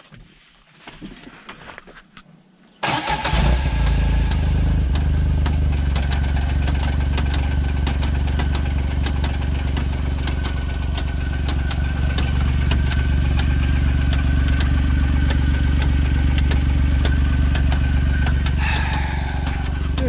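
John Deere Gator utility vehicle's engine starting about three seconds in, catching at once, then idling steadily with an irregular sharp ticking. The ticking is a noise the engine has newly developed, and it is not low oil.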